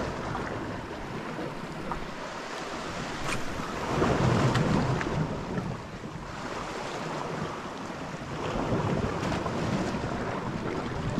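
Sea waves washing onto a rocky shore, swelling louder twice, with wind buffeting the microphone.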